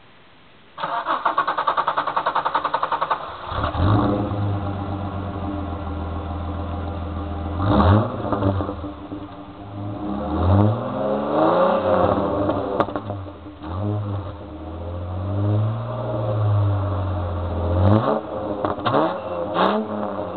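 Holden VT Commodore's 3.8-litre Ecotec V6 cranked on the starter for about two and a half seconds, catching and settling to idle, then revved several times, each blip rising and falling back. It breathes through a 2.5-inch straight-through cat-back exhaust.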